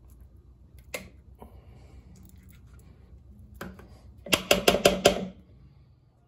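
Silicone spatula handling yogurt at a plastic mixing bowl: a single click about a second in, then near the end a quick run of about six knocks as the spatula is tapped against the bowl to shake the yogurt off.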